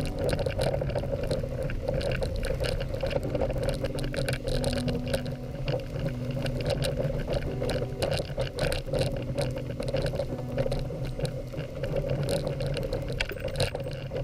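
Dog sled running over snow behind two Siberian huskies: a steady scraping hiss from the runners, with many small knocks and rattles from the sled and the dogs' paws.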